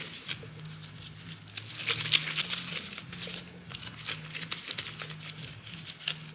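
Scone-making kitchen handling: a run of light scrapes, taps and rustles, busiest about two seconds in, over a low steady hum.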